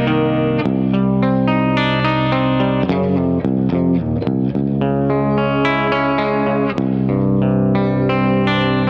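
Clean electric guitar played through a guitar amp, a continuous run of picked single notes and ringing chords, recorded on an Audix i5 dynamic microphone close to the amp.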